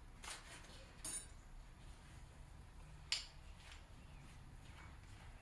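A few light clinks of small metal parts being handled, the sharpest about three seconds in, over faint room hiss.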